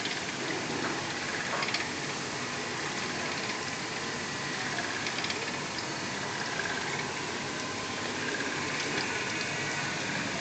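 Automatic ceramic plate glazing machine running steadily: a constant mechanical noise from its motors and moving parts, with a few faint clicks.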